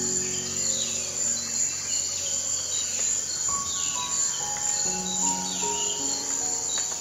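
Ambient soundtrack of slow background music with held notes over a steady chorus of crickets, with birds chirping several times.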